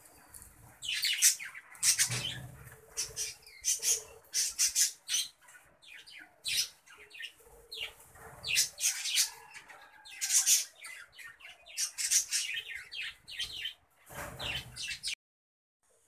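A colony of budgerigars chirping and squawking, many short sharp calls overlapping in a dense chatter that stops abruptly about a second before the end.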